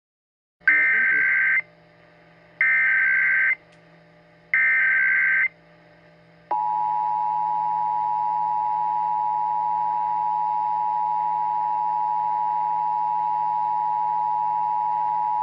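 Emergency Alert System tones: three one-second bursts of digital SAME header data, about a second apart, that encode the alert for broadcast receivers. At about six and a half seconds the steady two-tone EAS attention signal begins and holds, marking the start of an emergency alert.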